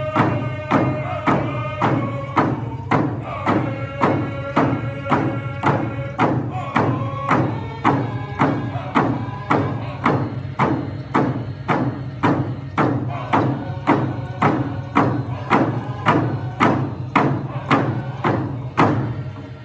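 Powwow drum group: a big drum struck in a steady beat of about two strokes a second, with singers' voices over it that fade out about halfway through while the drumming carries on.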